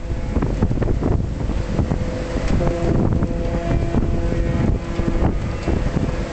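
Wind buffeting the microphone, a steady low rumble, with a few steady tones held for about two seconds partway through.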